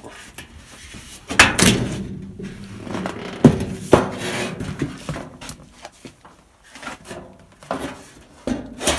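Metal back panel of a plasma TV being lifted off and handled: several sharp knocks and clatters with some scraping. The loudest come about a second and a half in, and again around three and a half to four seconds in.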